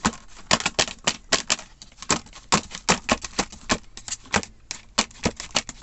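Silicone mould being tapped face-down against paper on a tabletop, a quick irregular run of sharp taps at about four a second, knocking the excess aluminium casting powder out of the mould.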